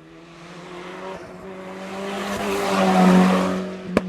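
Race car passing at speed: a steady engine note with a broad rush of noise that builds to its loudest about three seconds in, then fades away. There is a single sharp crack near the end.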